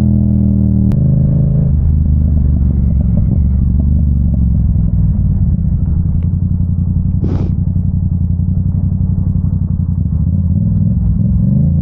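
Yamaha YZF-R7's parallel-twin engine running at steady revs on fresh oil, sounding nice, with a short hiss about seven seconds in. Near the end the engine note dips and climbs again.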